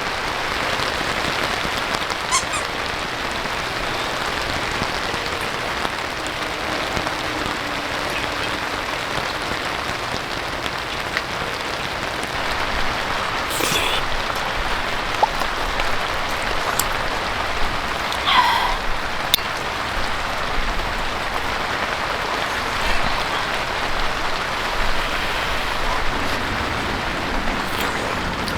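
Steady heavy rain falling, with a few brief sharp knocks scattered through it.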